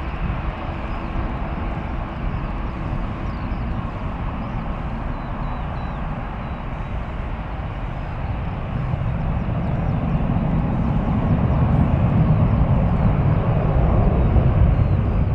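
Airbus A330-300 twin-engine jet airliner climbing out after takeoff, heard as a steady, deep jet rumble that grows louder in the second half.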